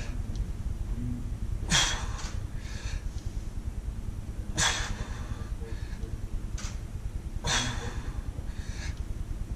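A weightlifter's heavy breathing during barbell back squats: a sharp, forceful exhale about every three seconds, once per repetition, three times. Each is followed by quicker, fainter breaths.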